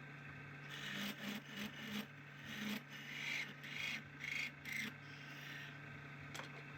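Hand tool scraping or abrading a hard surface: about a dozen short, irregular strokes over roughly four seconds, above a steady low hum.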